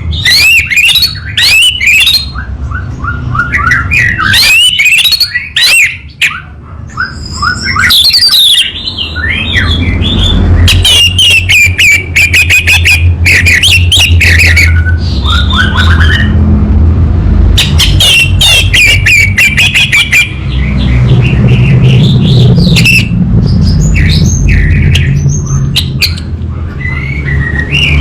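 Orange-headed thrush singing loudly in fast, varied phrases of whistles, rising and falling notes and rapid trills, with short pauses between phrases. A steady low hum runs underneath.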